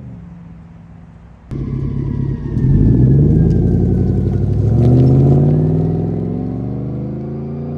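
GMC Sierra pickup fitted with an aftermarket exhaust and a new 4-inch dual exhaust tip, accelerating hard away. Its exhaust note rises twice, then drops in pitch and fades as the truck drives off. A quieter steady exhaust drone before it cuts off abruptly about a second and a half in.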